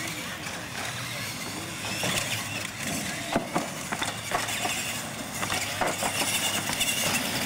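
Radio-controlled model monster trucks running on concrete, their motors and gears whirring, with sharp knocks scattered through as they bump over wooden ramps.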